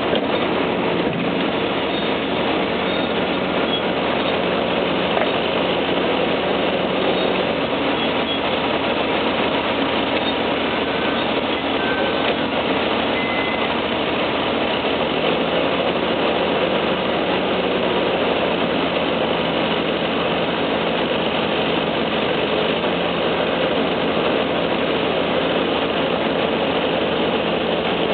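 Diesel engine of a Menzi-Muck A91 walking excavator running steadily, its low note shifting slightly around the middle.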